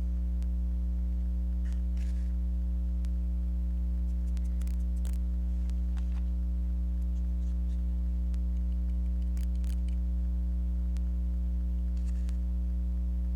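Steady electrical mains hum, with a few faint, scattered small clicks and scratches from close-up handwork.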